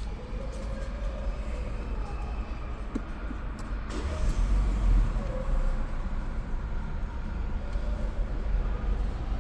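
Steady low rumble of the Peugeot 3008 running, with a few light clicks about three to four seconds in.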